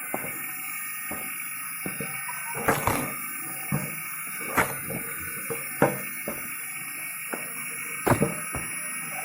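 Firewood being split: sharp irregular knocks and cracks of wood, about eight of them, over the steady hum of the homemade screw log splitter's washing-machine motor running.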